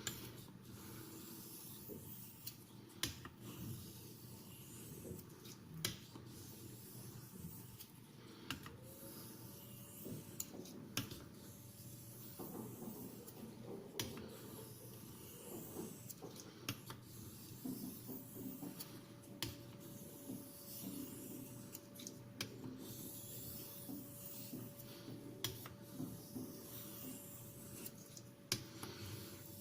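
Faint, repeated scraping of a CTS XHP steel knife blade being stroked across a sharpening stone, with small irregular clicks.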